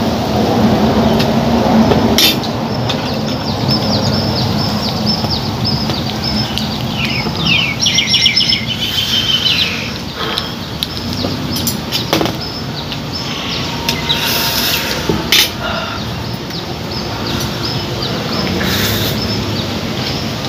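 Small birds chirping over a steady noisy background, with a few sharp knocks.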